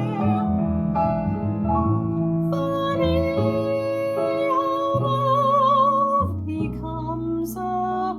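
A woman's soprano voice singing a slow ballad over piano accompaniment. She holds long notes with a wide vibrato.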